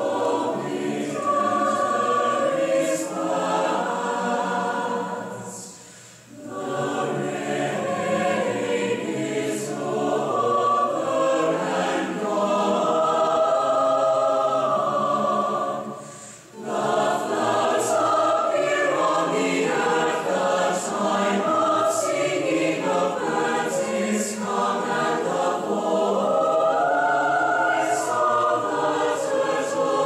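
Choir singing, with two brief breaks between phrases about six and sixteen seconds in.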